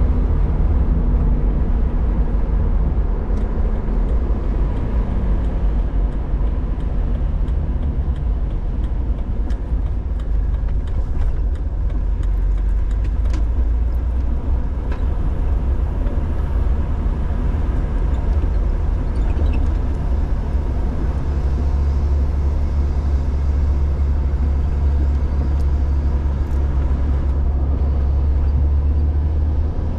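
2006 Jeep Wrangler's engine running steadily, a low hum whose pitch pattern shifts a little about two-thirds of the way through.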